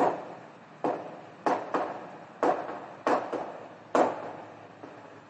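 Chalk on a blackboard, writing capital letters: about eight sharp taps at uneven intervals, one as each stroke starts.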